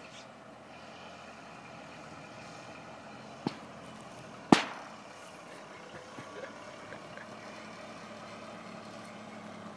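1929 Ford AA truck's four-cylinder engine running as the truck approaches slowly. About three and a half seconds in come two sharp pops a second apart, the second much louder.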